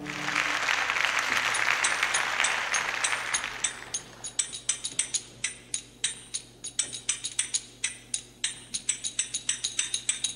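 Applause that breaks out as the band stops and fades away over about four seconds, followed by a run of sharp rhythmic clicks or claps, about five a second, with a light metallic ring.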